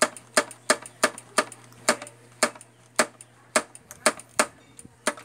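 Front brake lever of a Kawasaki Fury 125's hydraulic master cylinder being pumped by hand, a sharp click at each stroke about twice a second. The lever is being worked to bleed air out through the open reservoir.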